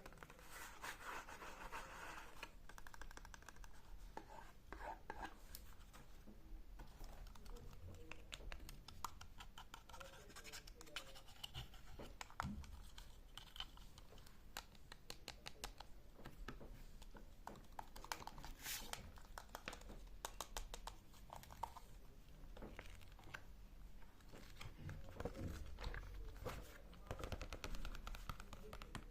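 Close-miked ASMR scratching and tapping on objects: a steady run of quick small clicks and scrapes, with a faint voice now and then.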